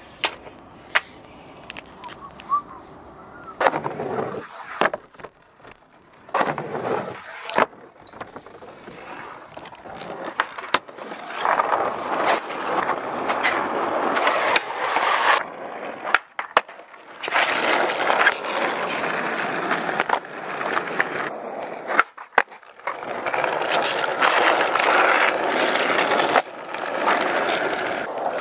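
Skateboard wheels rolling on rough asphalt, with sharp clacks of the board's tail popping and the board landing. After a quieter first stretch with a few scattered knocks, the rolling starts about a third of the way in and runs on in long stretches, broken by clacks and brief pauses.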